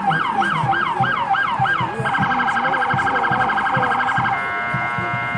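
Electronic emergency-vehicle siren switching modes: a yelp sweeping up and down about three times a second, then a rapid pulsing warble from about two seconds in, then a steady horn-like tone near the end.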